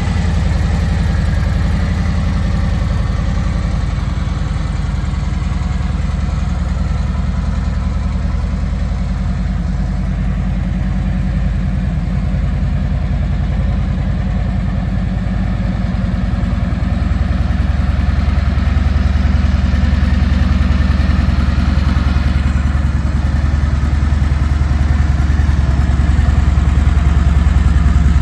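Harley-Davidson Tri Glide trike's Milwaukee-Eight 107 V-twin engine idling steadily.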